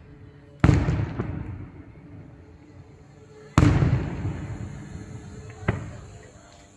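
Fireworks going off at a distance: three sharp bangs, two loud ones about half a second and three and a half seconds in and a smaller one near the end, each followed by a long rolling echo that dies away.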